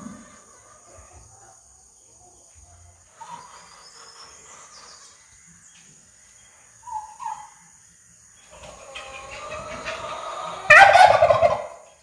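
Domestic turkey tom gobbling: one loud, rapid, rattling gobble near the end, after a couple of short, softer notes about seven seconds in.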